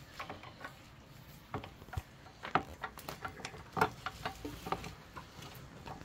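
Irregular light clicks and knocks of a Nissin front brake caliper with freshly fitted pads being worked back over the brake disc by hand, the two sharpest knocks about two and a half and four seconds in.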